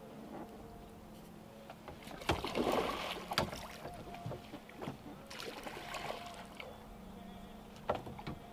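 A hooked red drum splashing at the water's surface beside a small boat as it is played on rod and reel and scooped with a landing net, in two short bursts, with a few sharp knocks and a low steady hum underneath.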